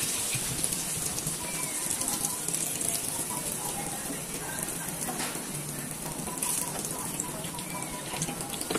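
Battered eggplant slices frying in hot oil in a pan, sizzling and crackling steadily, with a few light clicks of metal tongs as the slices are turned and lifted.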